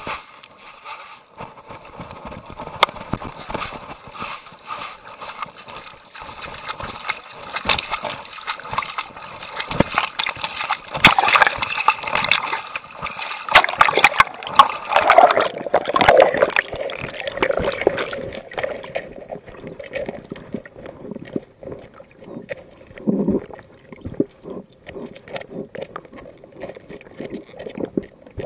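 Water gurgling and sloshing around a camera submerged in a shallow rocky stream, with many small knocks and clicks. It is busiest around the middle, then thins out.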